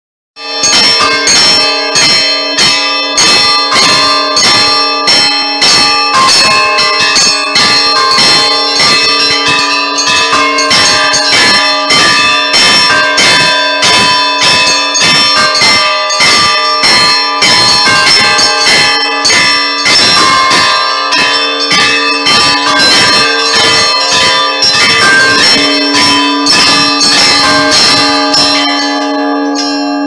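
Russian Orthodox church bells rung by pulling clapper ropes: a fast, steady peal of small bells struck several times a second over the ringing of larger bells. Near the end the strikes stop and one low bell keeps sounding.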